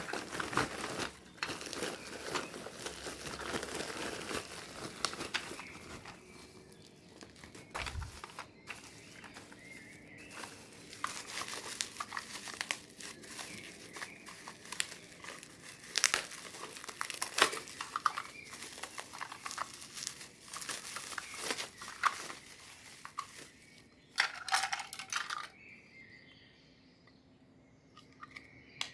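Plastic packaging crinkling and tearing as toy sets are unboxed by hand, with many sharp clicks. It goes much quieter over the last few seconds.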